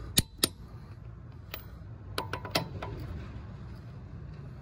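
A click-type torque wrench gives sharp metallic clicks, a pair near the start and a quick cluster of several about two seconds in. Each click-out marks a wheel lug nut reaching the wrench's set torque of 88.5 foot-pounds.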